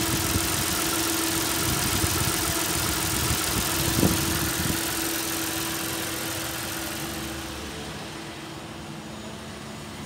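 A 2010 Mazda CX-9's 3.7-litre V6 idling steadily, with one sharp click about four seconds in. The engine sound fades over the last few seconds.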